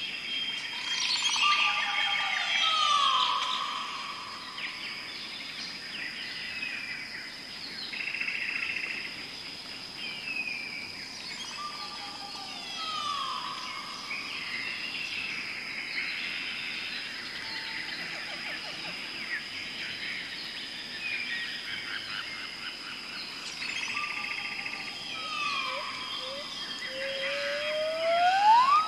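Birdsong ambience: chirps and trills over a steady high tone, with the same phrase of falling whistles coming back about every eleven seconds. Near the end a whistle glides upward twice.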